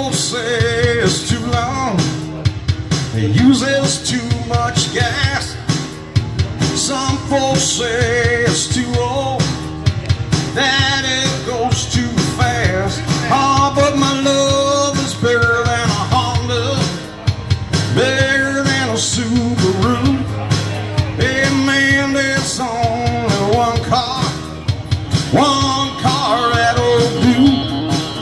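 A live two-piece band playing a rock-and-roll number on acoustic guitar and electric guitar through a small PA.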